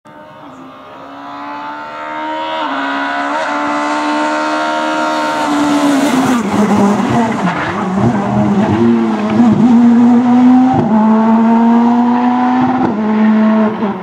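Škoda Fabia S2000 rally car's two-litre naturally aspirated four-cylinder engine at full throttle, fading in and growing louder as it approaches, with quick gear changes early on. The engine note falls and wavers about six seconds in, then climbs steadily again before dropping sharply with an upshift near the end.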